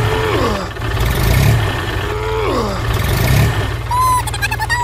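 Tractor engine sound effect running under strain, its low rumble swelling every second or two, with falling whining glides over it. Near the end a higher wavering tone starts.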